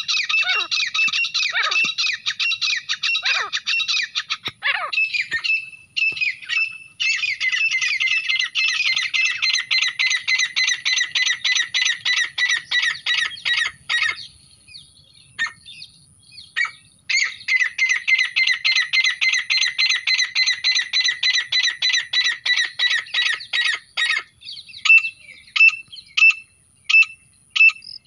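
Grey francolins calling: three long runs of rapid, repeated shrill notes, each several seconds long with short pauses between, then near the end separate single calls about one a second.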